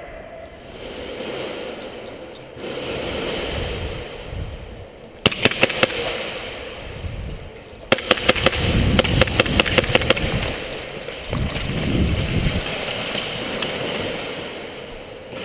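Airsoft guns firing in rapid strings of sharp pops: a short burst about five seconds in, then a longer burst about eight seconds in that lasts a couple of seconds.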